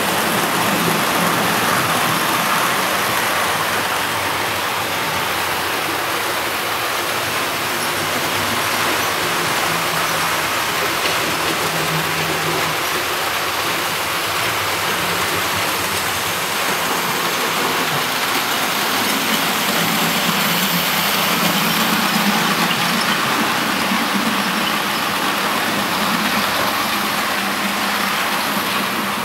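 00 gauge model trains running on the layout: a steady rumbling whir of locomotive motors and wheels on the rails, with a low hum that swells and fades as the trains pass.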